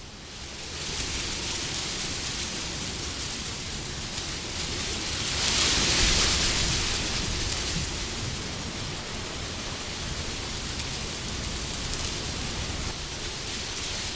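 Wind blowing, a steady rushing that swells into a stronger gust about six seconds in and then eases back.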